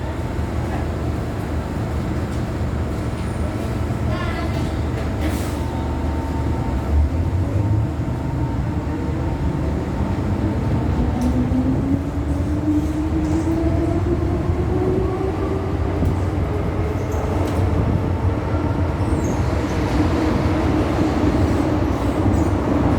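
Inside the car of an MTR M-train electric multiple unit pulling away from a station: a steady rumble of the running train, with the traction motors' whine rising slowly in pitch from about a third of the way in as the train gathers speed.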